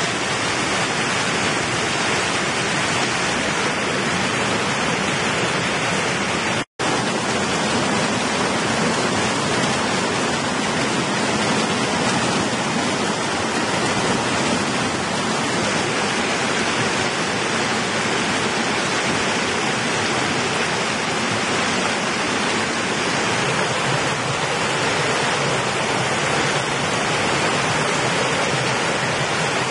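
Steady rush of a mountain stream cascading over rocks in small waterfalls. The rush breaks off for an instant once, about seven seconds in.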